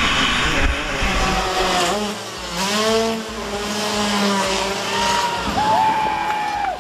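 Motocross bike engine at full throttle on the run-up to a jump, then revving with its pitch holding and sliding up and down.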